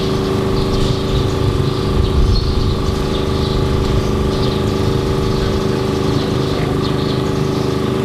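An engine running at a steady speed, a constant droning hum that holds one pitch throughout.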